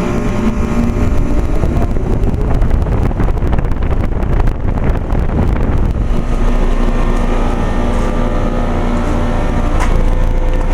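2009 Trane XL15i 3.5-ton heat pump outdoor unit running just after starting in heat mode: a steady compressor hum with the outdoor fan. A rushing noise rises over it for a few seconds in the middle, then settles.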